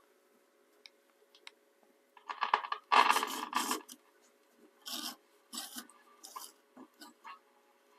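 Scraping and rubbing in irregular bursts as the radio's tuning dial mechanism is worked by hand, the dial pointer jamming at one end of its travel. A longer spell of scraping comes in the middle, then shorter scrapes, over a faint steady hum.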